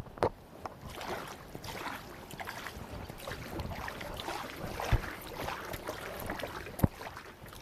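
Water splashing and sloshing around a kayak as it is paddled, with a few sharp knocks, the clearest about five and seven seconds in.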